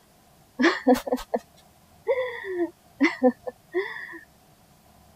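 A woman's breathy, wordless vocal sounds in four short bursts.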